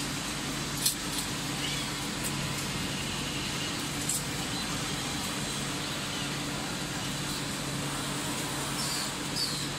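Automated cable coiling and packing machinery running: a steady low machine hum with hiss, broken by a few sharp clicks, about a second in and about four seconds in, and short high squeaks.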